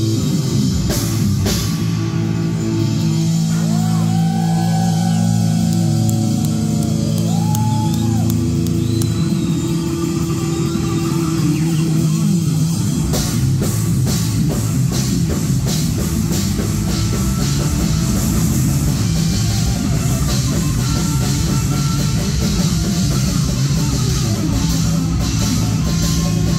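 Heavy metal band playing live. Distorted electric guitar and bass hold low notes, with the guitar bending pitch up and down. About halfway through the drum kit comes in and the full band plays on.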